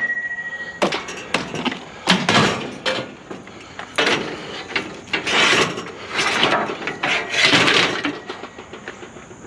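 Chairs being picked up and tossed onto a pile: a run of knocks and clanks with scraping and rattling between them, one metal hit ringing briefly at the start.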